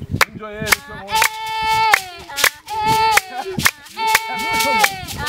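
Sharp handclaps about twice a second, with women singing long held notes that drop at the end: the clapping and song that accompany a San Tsutsube dance.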